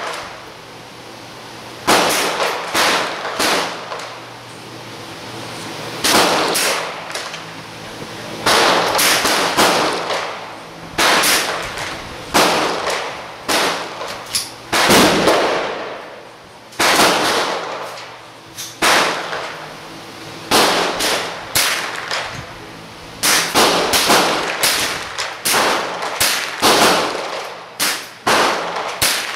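Rifle fire on a shooting range: dozens of sharp shots at irregular intervals, some in quick succession, each trailing off in an echo.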